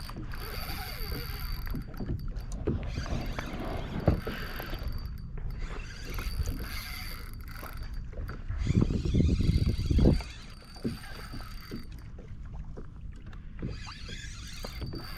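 Water and handling noise on a plastic fishing kayak: low rumbling water sound with scattered knocks on the hull, growing louder for a second or so about nine seconds in.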